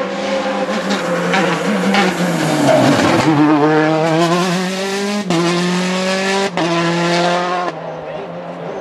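A rally car's engine running hard: the note drops as it brakes into a bend, then climbs through the gears as the car accelerates away. The engine note jumps abruptly a few times in the second half.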